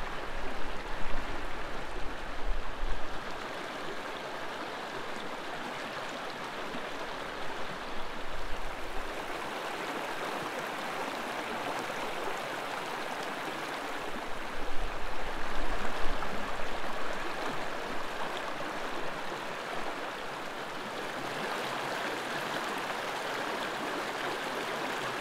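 Mountain river rushing steadily over rocks, with a few brief low rumbles.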